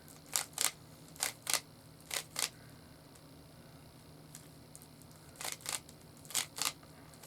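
A loose Rubik's cube being twisted by hand, its layers clicking in quick pairs. There are three pairs in the first two and a half seconds, a pause, then two more pairs near the end.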